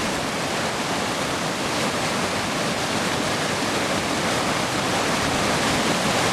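A tall waterfall at spring runoff, a steady rush of falling water.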